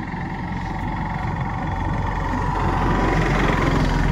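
A motor vehicle's engine running steadily and gradually getting louder, as if drawing closer.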